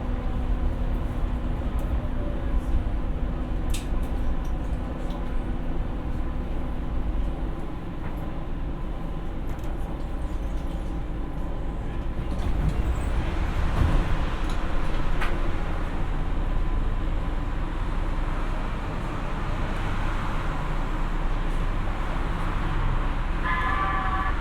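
Siemens P2000 light-rail car running on the track, heard from inside: a steady rumble of wheels and motors with a steady tone that fades out about a third of the way through, and a short run of beeps near the end.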